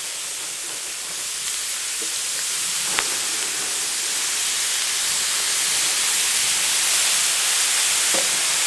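Seafood, mini squid among it, sizzling hard on a hot steel fire plate: a steady hiss that slowly swells, with one sharp click about three seconds in.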